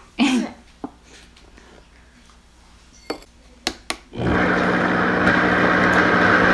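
Countertop blender switching on after a few sharp clicks about four seconds in, then running steadily with a constant motor hum as it mixes egg-based pancake batter.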